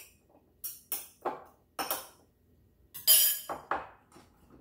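A spoon and small dishes clinking and knocking on a tabletop: several short, sharp clinks, the loudest about three seconds in.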